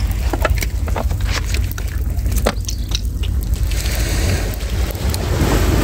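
Wind buffeting the microphone as a steady low rumble, with scattered light clicks and knocks.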